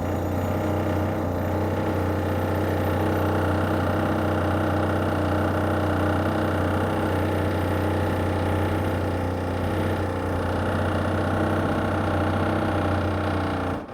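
Heavy construction machinery breaking up an old driveway: a loud, steady engine drone with a strong low hum that cuts off suddenly near the end.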